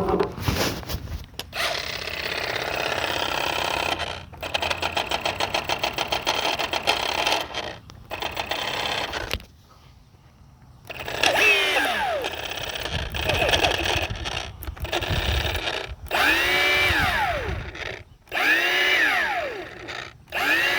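Milwaukee M18 2825-21ST cordless power tool run in repeated bursts. The early runs carry a fast, even rattle. Later trigger pulls make the motor's pitch swoop up and fall back again and again, sounds the owner puts down to a bad motor in the new tool.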